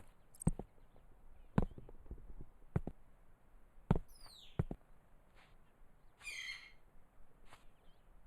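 Birds chirping in a quiet outdoor ambience, with a few separate soft knocks about a second apart in the first half and a short falling chirp a little past the middle.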